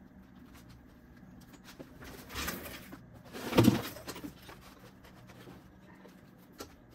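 Heavy vinyl soft top rustling and sliding as it is shifted across a sewing machine table, with a louder scuffle about three and a half seconds in and a few small clicks near the end.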